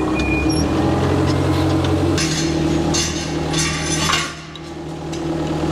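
Forklift engine running, its pitch stepping up about two seconds in as the mast lifts a steel frame loaded with a tractor. Rattling and clinking sound from about two to four seconds, then the level drops.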